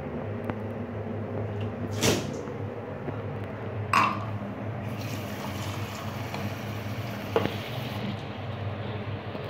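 Knocks, one a ringing clink of an enamel mug set down in a ceramic washbasin about four seconds in, then tap water running into the mug for about three seconds, filling it.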